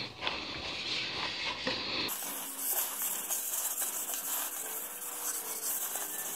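Wet sandpaper rubbed by hand over the primed spokes of an alloy wheel: a steady scratchy hiss of wet-sanding the primer smooth before painting. About two seconds in it changes abruptly to a brighter hiss.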